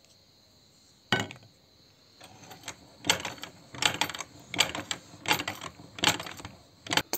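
Hand-cranked cast-metal meat grinder being turned with toothpaste in the hopper: a single knock about a second in, then a rhythmic mechanical grinding, about one and a half pulses a second, as the auger draws the paste down.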